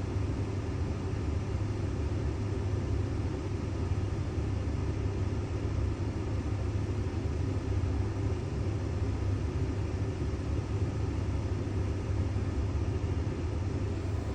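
Steady low rumble of a running vehicle, unchanging throughout.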